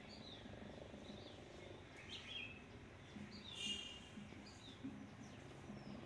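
Parakeets calling: short screeches falling in pitch, repeated about once a second, the loudest about three and a half seconds in.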